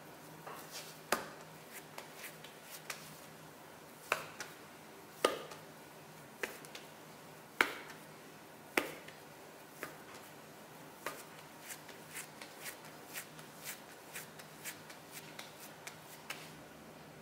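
Hands shaping a ball of lupin-flour bread dough on a silicone baking mat: irregular sharp slaps and pats of dough and palms against the mat, with a few louder slaps in the first nine seconds and then a run of lighter, quicker taps.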